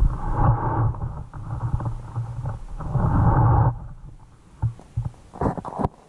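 Muffled rumbling and knocking picked up by a submerged camera housing under the ice as it shifts on its line. The noise drops away about two-thirds of the way in, leaving a few short knocks near the end.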